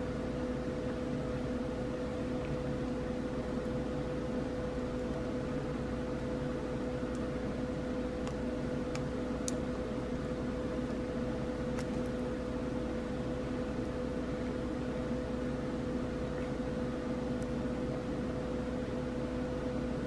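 Steady motor hum with a constant low tone, unchanging throughout, with a few faint ticks here and there.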